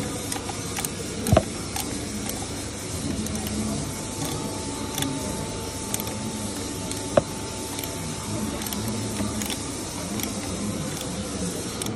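Hand ratchet working a socket on the catalytic converter's mounting nuts: scattered light clicks, with two sharper metallic knocks, one about a second in and one past the middle.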